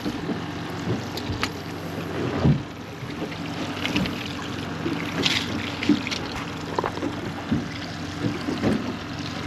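Boat sounds: water lapping at the hull over a steady low hum, with scattered knocks and clicks of handling on deck.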